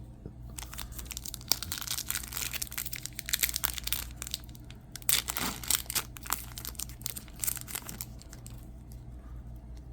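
Plastic wrapping crinkling and crackling as it is handled, with a dense run of irregular crackles that thins out near the end.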